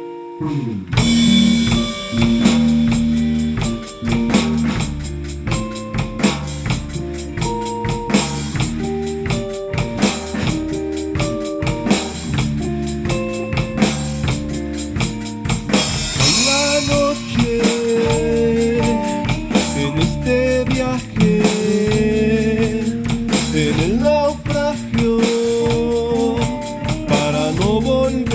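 Rock band playing live: drum kit, bass and electric guitars. The full band crashes in about a second in after a guitar lead-in, and from about halfway a bending lead line rides over the steady groove.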